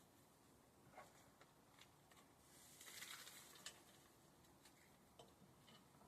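Near silence, with faint scattered ticks and a brief soft hiss about three seconds in.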